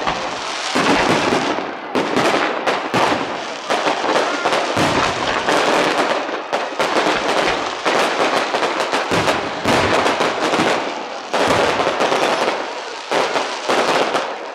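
Fireworks going off in a dense, continuous barrage of bangs and crackling.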